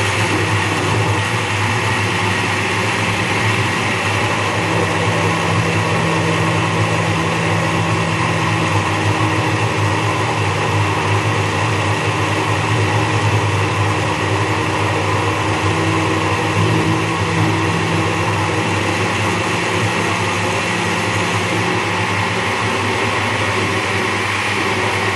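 Blender running steadily, blending cooked pumpkin and okra with water into a smooth purée.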